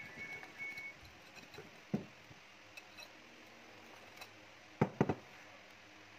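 Wire whisk working batter in a glass mixing bowl: a few short high squeaks of the wires against the glass at the start, a click about two seconds in, and two sharp clinks of metal on glass about five seconds in.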